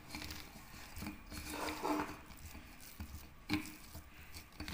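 Hands kneading soft, ghee-mixed maida dough in a steel bowl: soft, irregular squishing and rubbing, with a couple of light knocks against the bowl, the clearest about three and a half seconds in.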